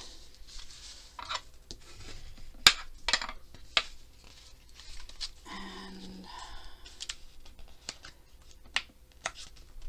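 Thick, stiff manila file-folder card being folded and creased by hand against a tabletop: paper sliding and scraping, with sharp snapping clicks as the heavy card bends, the loudest about three seconds in.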